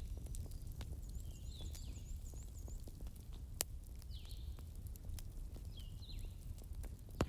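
Wood fire burning with a low rumble, scattered crackles and two sharp pops, the louder ones about three and a half seconds in and near the end. Birds call over it with short chirps and a rapid high trill.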